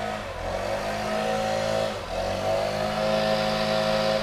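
Petrol leaf blower's small engine running at a steady high speed. It dips briefly about halfway, picks up again and stops abruptly.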